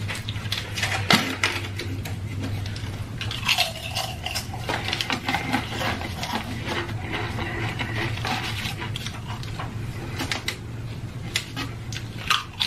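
Close-miked eating: chewing and crunching of chips, with irregular crackles and clicks as food and packaging are handled, over a steady low hum.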